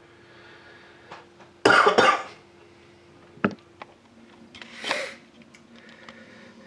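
A person coughs twice in quick succession, followed by a single sharp click and, about three seconds after the coughs, a softer rasping burst, over a faint steady hum.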